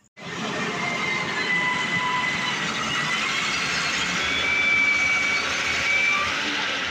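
Heavy diesel machinery running under load, an excavator working beside a stuck truck, with thin high squealing tones that waver over a steady wash of engine noise. The sound starts abruptly.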